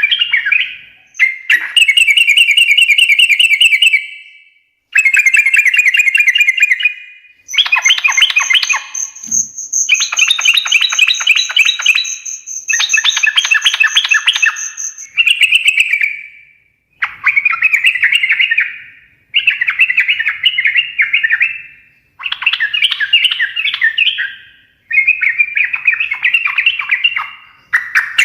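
Yellow-vented bulbul (trucukan) singing in a run of bubbly, chattering phrases, each about two to three seconds long with short pauses between. A thin, high, steady note sounds over the phrases for several seconds in the middle.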